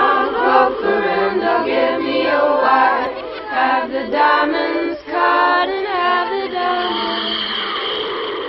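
A group of voices singing together unaccompanied in a choir-like chant, as a music soundtrack. Near the end the singing gives way to a steady high-pitched animal chorus.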